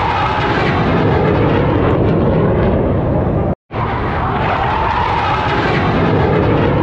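Loud, steady roar of a jet aircraft flying over, with a faint falling-and-rising whine in it. The sound cuts out for an instant a little past halfway, then resumes.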